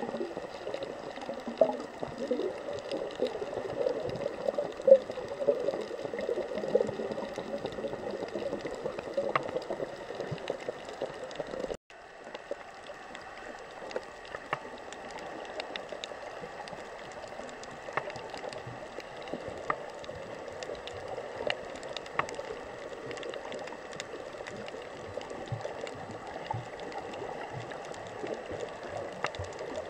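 Muffled underwater water noise heard from a camera inside a sealed underwater housing while snorkeling, with scattered faint ticks and crackles. It is louder and more churning at first, drops out for an instant about twelve seconds in, then carries on steadier and quieter.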